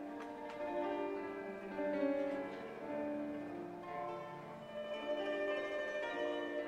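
Instrumental music built on overlapping, ringing plucked string notes.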